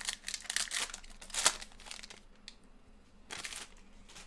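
Packaging of trading-card packs crinkling and tearing as it is opened, in a few noisy bursts: a cluster in the first two seconds, the sharpest about one and a half seconds in, and a short one near the end.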